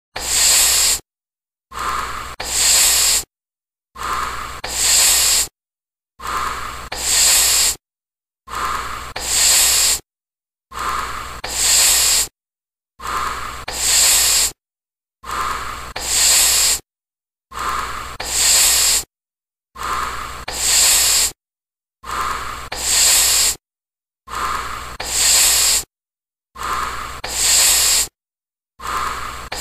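A person takes a toke, drawing smoke in, then breathes it out in a louder, hissing exhale. The pair repeats about thirteen times, about every two and a quarter seconds, with dead silence between.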